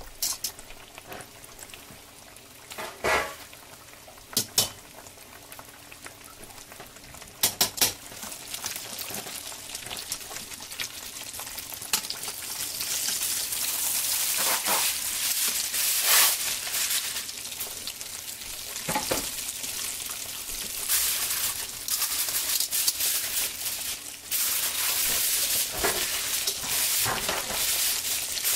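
Breaded pork cutlet frying in hot oil in a pan: a steady sizzle and bubbling. Metal tongs click against the pan a few times. The sizzle grows much louder about halfway through, as the cutlet is turned over in the oil.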